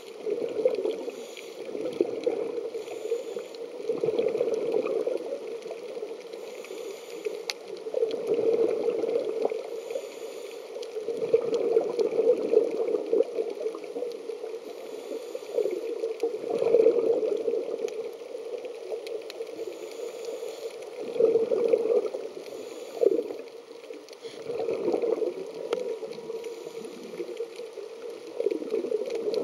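Scuba regulator breathing heard underwater through the camera housing: a gurgle of exhaled bubbles that swells and fades about every four seconds.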